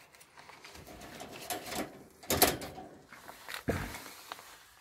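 Handling noise: rustling with a few scattered knocks, the loudest about two and a half seconds in and another a little after three and a half seconds.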